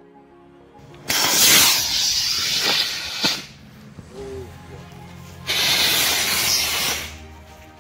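A 3D-printed model rocket's solid rocket motor hissing in two loud bursts, about two seconds and then about one and a half seconds long, with a sharp crack ending the first. The rocket has not flown as hoped and its motor is burning on the ground.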